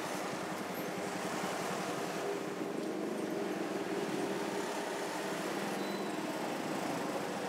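Steady city street traffic noise with the hum of engines running close by.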